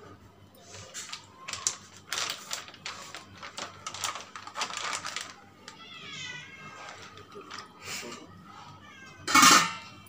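Crinkling and rustling of oiled plastic sheets as dough is handled and pressed, in a run of short crackles. About six seconds in comes a short high-pitched call, and near the end a single louder rustle.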